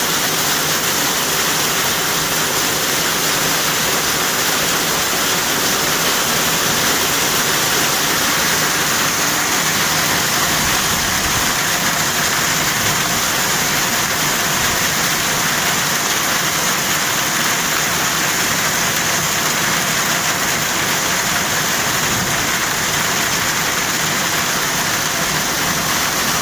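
Heavy rain falling steadily in a thunderstorm, an even hiss with no thunderclaps.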